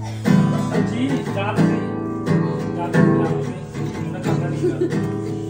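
Acoustic guitar being strummed, chords struck about every three quarters of a second and left ringing over a sustained low note.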